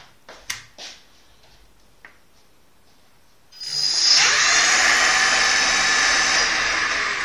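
A few sharp clicks, then about three and a half seconds in an electric scooter's brushless (BLDC) motor, run from a 144-volt controller, spins up with a rising whine and runs at a steady high speed, easing slightly near the end.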